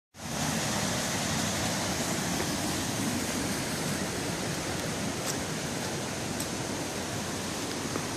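Steady rush of a fast-flowing stream tumbling over rocks as white water, a constant hiss with no breaks.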